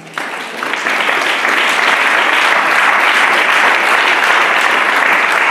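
Congregation clapping in praise, building up over the first second and then holding steady.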